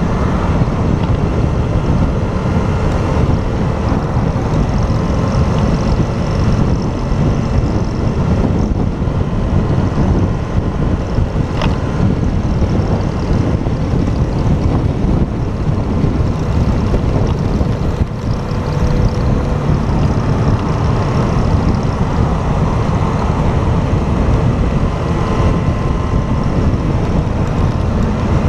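Motorcycle riding along at a steady pace: engine running under heavy wind rush on a helmet camera.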